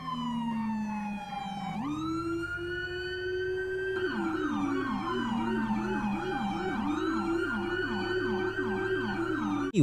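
Police escort sirens. A wail falls slowly, then sweeps back up about two seconds in and holds. From about four seconds it switches to a fast yelp of roughly two to three sweeps a second over a slower wail.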